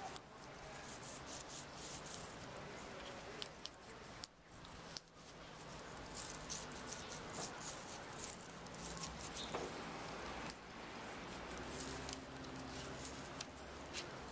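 A kākā parrot chewing and biting food held in its foot, its beak making a dense run of small, crisp clicks and crackles over a steady background hiss.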